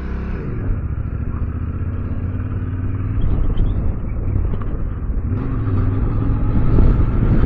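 Yamaha Ténéré 700's parallel-twin engine running at a steady pace while riding, with wind rushing over the microphone. The sound gets louder and hissier about five seconds in.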